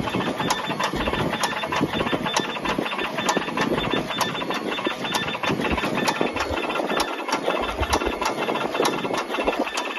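Automatic wire cutting and stripping machine running: its motors and feed rollers make a steady mechanical whir, with a sharp click about twice a second as the blades cut and strip each length of wire.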